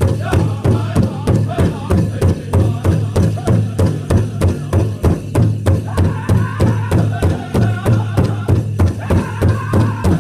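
Powwow drum group striking a large bass drum in a steady, fast, even beat while singing. High-pitched voices come in strongly about six seconds in.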